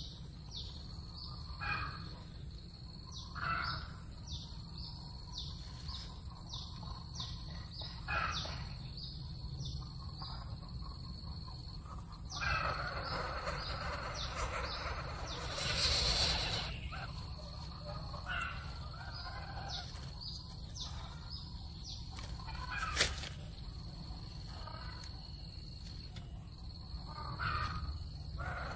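Birds chirping outdoors in quick downward-sweeping high chirps, about two a second, over a steady high-pitched buzz. A louder burst of noise rises in the middle, and a single sharp click comes later.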